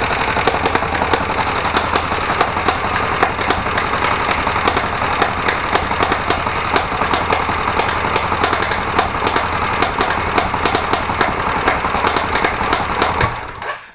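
Kawasaki VN1500 Vulcan V-twin engine idling, with a rapid run of sharp knocks over the running, then switched off near the end. The knock is a clear, ringing one that the mechanic cannot explain and doubts comes from the cam chain.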